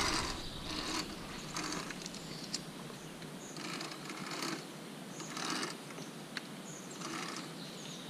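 Safety pulley rolling in short pushes along a steel overhead cable, with a few sharp metallic clicks from the clips and cables.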